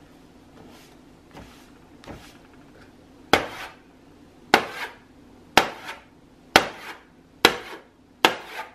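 Chalk knocked against a chalkboard easel: a few faint taps, then from about three seconds in six sharp knocks about a second apart.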